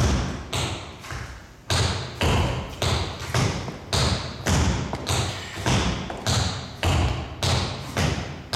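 Tap shoes striking a hard floor in an even beat, about two strikes a second, each with an echoing tail.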